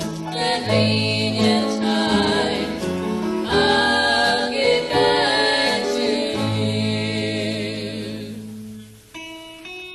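Gospel vocal group singing in harmony with instrumental backing, the song fading on a held chord about eight to nine seconds in. A new instrumental passage with a plucked string instrument starts just before the end.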